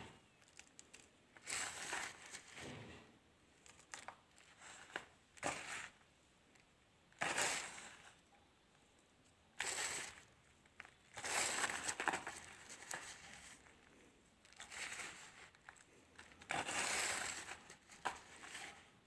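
Colored sand being crushed and crumbling apart, in about a dozen irregular short bursts separated by quiet pauses.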